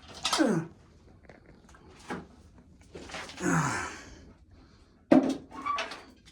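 Hand-shelling ears of corn: two short sounds that fall in pitch, then a sharp knock about five seconds in followed by a brief clatter.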